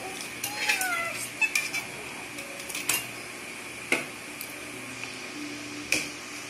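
Cutlery clinking against plates and bowls at a meal: a handful of sharp clicks about a second apart, over a steady high-pitched background tone.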